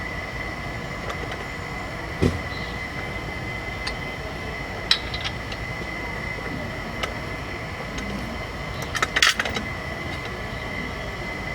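A few sharp metal clicks and knocks, the loudest a quick cluster near the end, from floor-jack and crossbar parts being handled and fitted together. Behind them runs a steady hum with a constant high whine.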